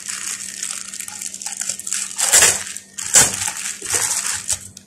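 Clear plastic packaging crinkling and rustling as it is handled and pulled open, with two loud crackles about halfway through and about a second later; it dies away just before the end.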